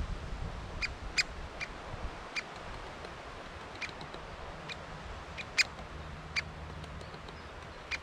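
Great spotted woodpecker giving sharp single 'kik' calls, about ten of them at irregular intervals, over low wind rumble.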